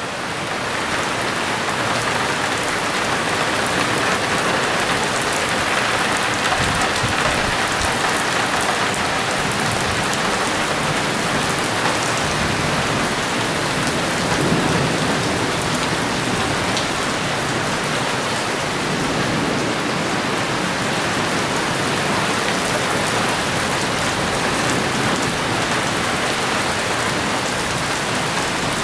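Small hail falling steadily on a concrete patio, lawn and gas grill: a dense, even patter with no let-up.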